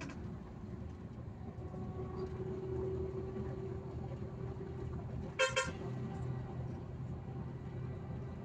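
Bus engine running steadily as it drives, heard from inside the cab, with a short double toot of the horn about five and a half seconds in.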